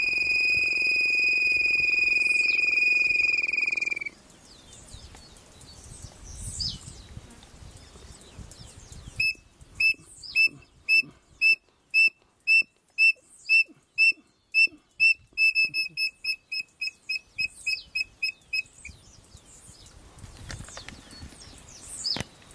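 A long, steady, clear whistle cuts off suddenly about four seconds in. About five seconds later comes a codorna piriri call: a run of short whistled notes, about two a second, quickening and growing fainter before it stops.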